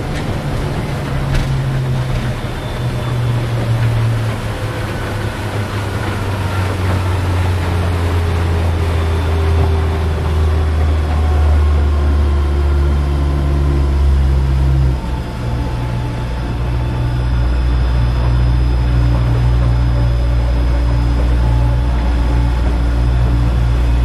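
Outboard motor on a small inflatable boat running steadily under way, its engine note shifting slightly and dipping briefly about halfway through.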